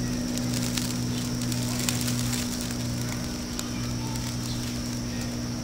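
Breath blown in repeated puffs into a smouldering tinder bundle to bring a hand-drill ember to flame, with small crackles from the dry tinder. A steady low hum runs underneath.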